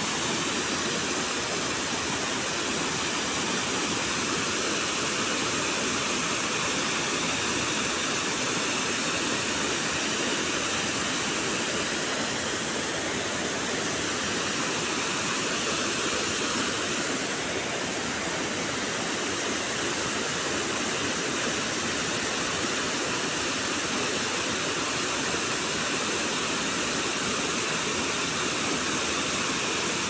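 Waterfall pouring over a tall rock cliff into a pool: a steady, unbroken rush of falling water.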